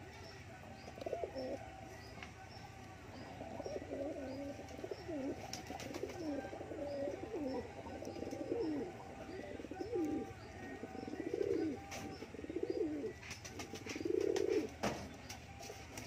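Domestic pigeons cooing over and over in low, warbling phrases while they feed. A few light clicks come through near the end.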